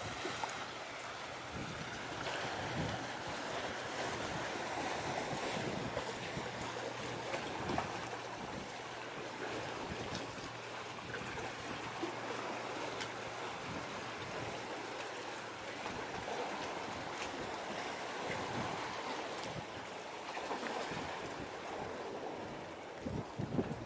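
Wind buffeting the microphone over steady sea noise, with the faint, steady low drone of a distant ship's engine that fades out about two-thirds of the way through.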